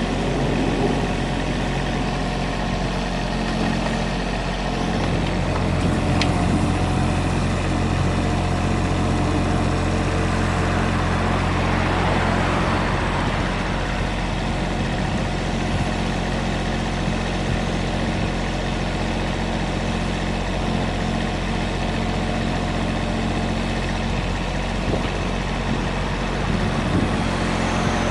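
Komatsu PC15R-8 mini excavator's diesel engine running steadily with an even hum; a deeper note in the hum grows stronger about five seconds in.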